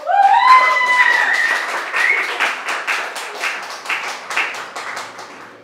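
A small audience clapping after a live set, opening with a loud whoop that rises in pitch. The clapping thins out and fades toward the end.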